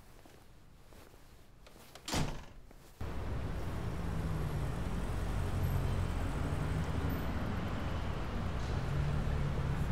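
A door shuts with one short bang about two seconds in. From a second later a Volkswagen Polo hatchback's engine runs steadily as the car drives.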